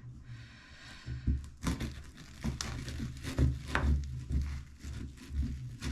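Knife pressed down and wriggled through a set chocolate fridge cake, giving irregular crackling and crunching as it cuts through hard chocolate, digestive biscuits and Rice Krispies.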